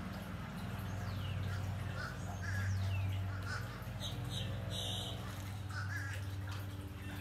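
Crows cawing several times over a steady low machine hum, with a few high falling bird chirps.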